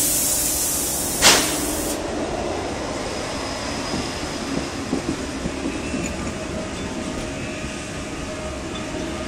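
Double Deutsche Bahn ICE-T electric tilting train pulling away from the platform, its cars passing close by. It opens with a loud hiss and a sharp bang about a second in, both stopping after about two seconds. Then comes a steady running noise with a low electric hum and a few wheel clicks.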